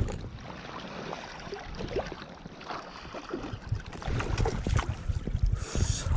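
River water splashing and sloshing as a hooked cherry salmon thrashes at the surface beside a landing net held in the current, with wind rumbling on the action camera's microphone. The splashing gets louder about four seconds in.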